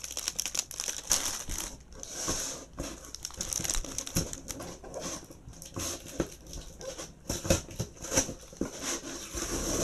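Clear plastic packaging crinkling and rustling in irregular fits and starts, with scattered light knocks, as wrapped goods are handled and rummaged through.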